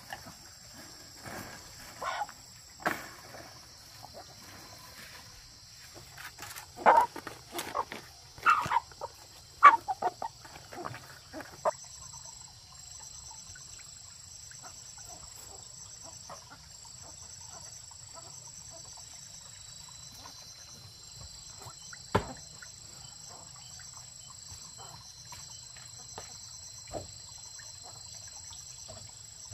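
Insects chirring steadily and high-pitched, with a pulsing beat in the sound from about a third of the way in. Over it comes a run of short, sharp sounds in the first dozen seconds, the loudest of them between about seven and ten seconds in, and one more sharp sound about two-thirds of the way through.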